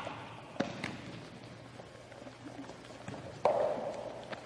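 A volleyball being struck and bouncing on a wooden gym floor, echoing in the hall: two light slaps in the first second, then one loud hit about three and a half seconds in, followed by a brief scuffing.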